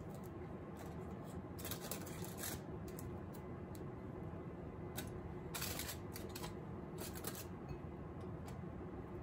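Aluminium foil crinkling and rustling in short bursts as hands tuck enoki mushrooms into foil parcels, over a steady low hum.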